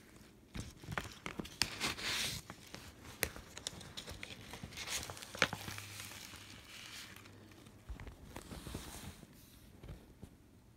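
A 12-inch vinyl record being slid out of its inner sleeve and handled: the sleeve rustles and scrapes in several stretches, with scattered small clicks and taps.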